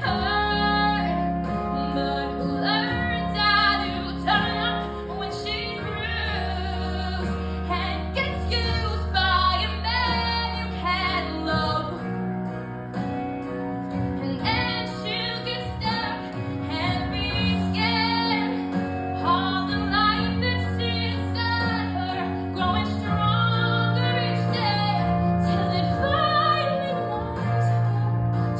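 A girl singing a solo through a microphone, amplified, over instrumental accompaniment with sustained bass notes.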